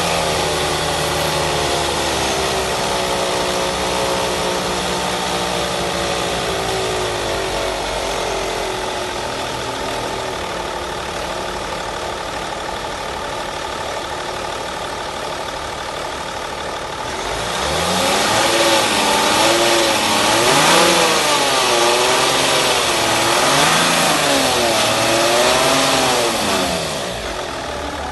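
Car engine running, its speed slowly settling over the first few seconds, then revved up and down several times before it drops back to idle near the end.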